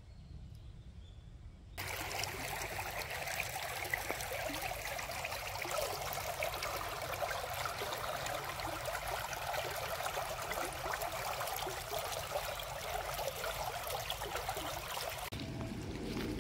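Shallow spring-fed stream trickling and babbling over rocks, a steady bright rush of water that starts suddenly about two seconds in. Near the end it changes to a softer, lower flow.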